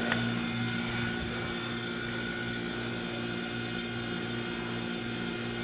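Steady machine hum made up of several constant tones, with a single short click right at the start as the elevator call button is pressed.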